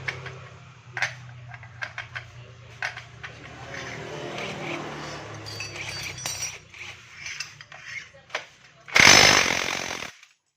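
Metal tools clicking and clinking against Yamaha NMAX CVT and clutch parts while the worn automatic clutch is being replaced. Near the end a loud burst of noise lasts about a second.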